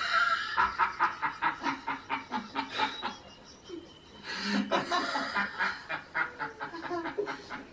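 Laughter in two bouts of quick, repeated ha-ha pulses, the first lasting about three seconds and the second starting about four seconds in.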